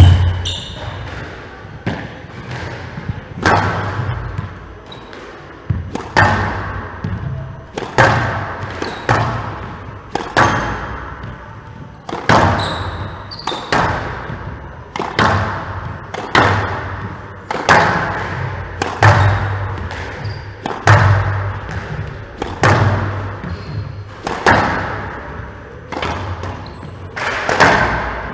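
Squash ball being hit back and forth in a warm-up on a glass-walled court: sharp cracks of racket on ball and ball on wall about once every second or so, each ringing out in the large hall.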